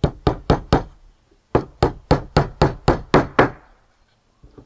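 Hammer driving a small nail in from the side through the wooden side bar into the top bar of a Langstroth hive frame: four quick taps, a short pause, then eight more strikes in a steady run of about four a second.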